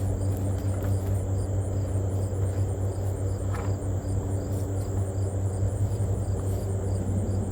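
Crickets chirping in a steady, regular rhythm over a loud, steady low hum, with a single faint tap about three and a half seconds in.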